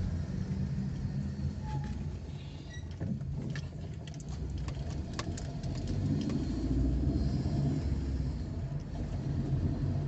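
Car driving, heard from inside the cabin: a steady low rumble of engine and road noise that grows a little louder about six seconds in. A scatter of light clicks and rattles comes between about three and five and a half seconds in.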